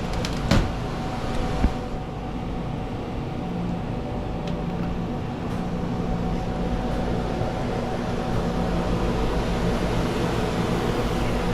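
Commercial refrigerator running with a steady mechanical hum and whir, with two short knocks in the first two seconds. The unit is running but holding only about 50 degrees.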